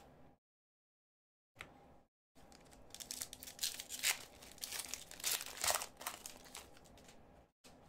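Foil wrapper of an Upper Deck hockey card pack being torn open and crinkled by hand, a run of crackling from about two and a half seconds in until just before the end.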